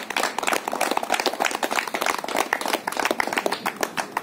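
A small group of people clapping in applause, a dense, irregular patter of hand claps.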